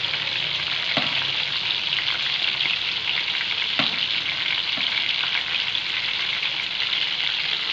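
Marinated prawns deep-frying in hot oil, a steady sizzle, with a few light knocks of a slotted spoon against the pan as the pieces are stirred and turned.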